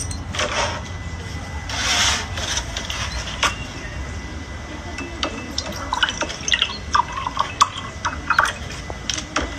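Milk poured from a plastic bottle into a mug, glugging in quick uneven blips through the second half. Before that come two short scraping handling noises.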